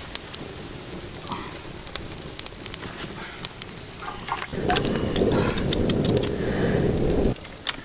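Wood fire crackling with sharp pops under a metal wok. About halfway through, water is poured into the wok for nearly three seconds, and the pouring stops suddenly near the end.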